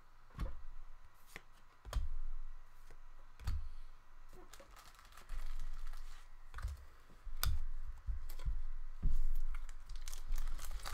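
Trading cards and packs being handled on a table: a series of short knocks and taps, roughly one every second, with light rustling of card packs between them.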